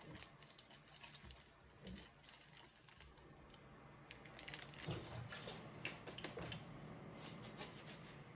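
Faint crinkling and light taps of plastic zipper freezer bags being handled and stacked on a cloth-covered table. About halfway through, this gives way to scattered clicks and knocks of washing up at a kitchen sink.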